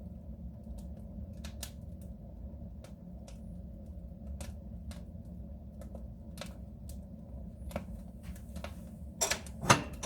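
Wood fire burning in a soapstone stove: a steady low rush of the flames with irregular crackles, and a few louder pops near the end.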